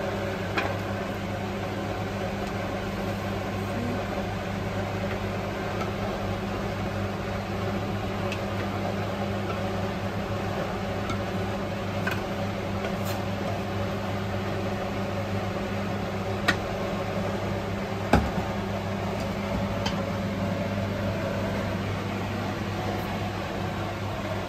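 Steady low hum of a kitchen fan running, with a few sharp clicks and scrapes of the wok and a wooden spatula against a plate as the stir-fry is served.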